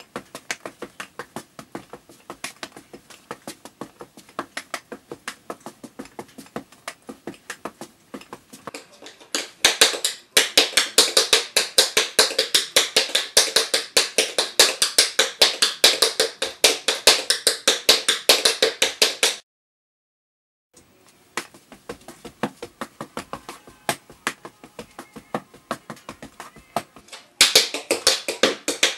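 Tap shoes striking a wooden floor in quick, rhythmic runs of taps. The taps grow louder about a third of the way in, stop briefly for a moment about two-thirds through, then start again softer and swell near the end.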